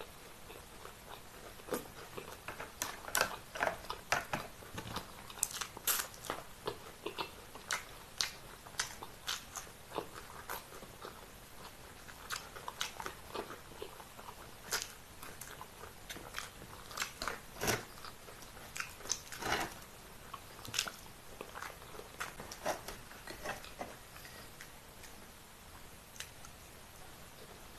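A person chewing and biting food close to the microphone, with irregular sharp clicks and smacks, sometimes several a second.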